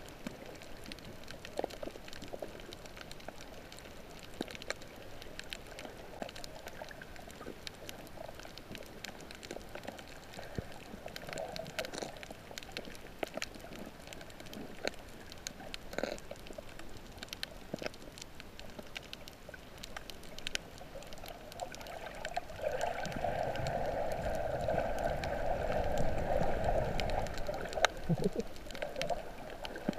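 Underwater sound around a submerged camera over a coral reef: a steady hiss scattered with sharp clicks and crackles, then a louder gurgling rush of water from about two-thirds of the way in until shortly before the end.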